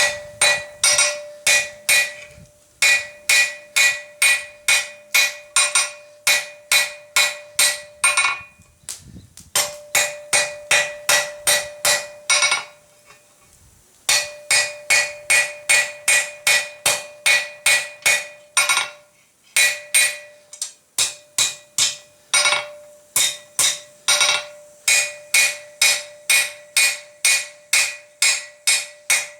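Blacksmith's hand hammer striking steel flat bar on an anvil, drawing it out: runs of blows about three a second, broken by short pauses, each blow ringing with a clear metallic tone.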